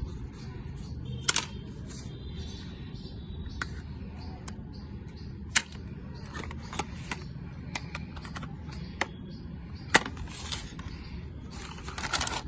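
Plastic toy gun being handled, giving scattered sharp clicks (a quick double click about a second in, single ones later) and a brief rustle near the end, over a steady low hum.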